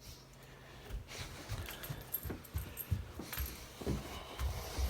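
Great Dane puppy shifting about: scattered soft knocks, low thumps and rustling with a faint light jingle, starting about a second in.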